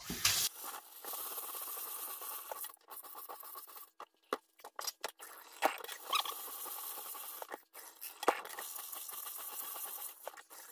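Kitchen tap water pouring onto dry soybeans in a stainless steel colander as hands stir and rub them to wash them, with a few sharp clicks of beans and metal. The sound breaks off briefly a few times.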